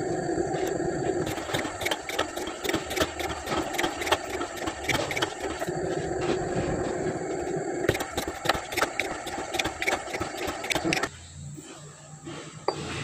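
Slotting machine running, its reciprocating cutter slotting internal splines into a steel gear coupling with a rhythmic clatter of strokes over the machine's hum. The cutting stops about eleven seconds in, leaving a quieter, lower hum.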